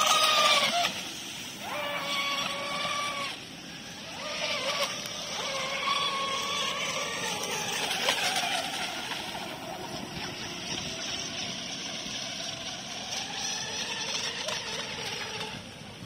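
High-pitched motor whine of radio-controlled racing speedboats running at speed, coming in several short spells and bending in pitch as the boats pass. For most of the second half it settles into a steadier, lower whine, over a hiss of wind and water.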